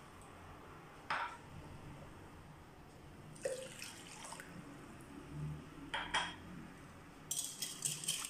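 Warm water poured from a drinking glass into a glass mixing bowl, with a few light knocks of glass. Near the end a wire whisk starts clicking rapidly against the bowl as the mixture is stirred.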